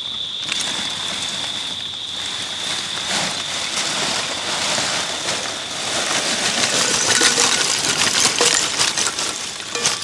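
Dumplings frying in hot oil: a steady sizzle with many small crackles that grows louder about six seconds in. A cricket's steady high trill runs underneath through the first half.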